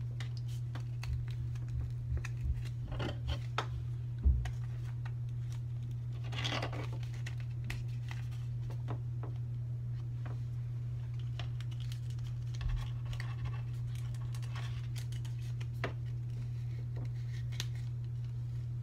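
Paper cards being slid into clear plastic badge sleeves: light scratching and crinkling of the plastic with scattered clicks and taps, and one sharper knock about four seconds in, over a steady low hum.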